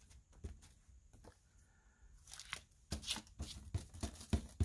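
A rubber text stamp being inked on a pad and pressed by hand onto a card: faint taps and paper rustling. From about halfway in come a run of clicks and several soft, dull knocks.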